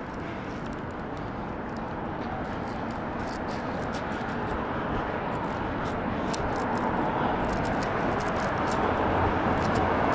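A passing vehicle's steady rush, slowly growing louder as it approaches.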